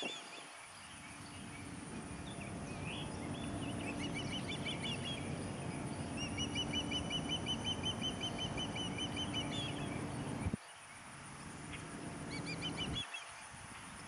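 Ospreys calling: several series of high chirps, the longest a rapid run of about four seconds midway. Under them a low rumble cuts off suddenly about ten and a half seconds in and returns briefly.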